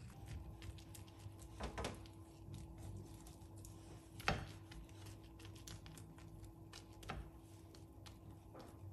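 Silicone spatula stirring and scraping cabbage in a nonstick frying pan, with a few light knocks against the pan, the loudest about four seconds in.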